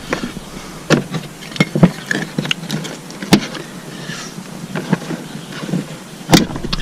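Irregular metallic clicks and knocks, a few a second, with one sharp louder knock near the end: a wrench working loose the top mount bolts of a Subaru WRX's rear strut.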